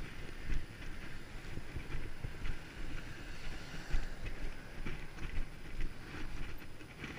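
Wind buffeting the microphone with an uneven low rumble, as heard while riding a bicycle.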